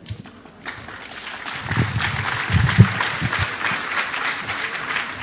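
Audience applauding, starting about a second in, swelling and then fading near the end, with a few dull low thumps in the middle.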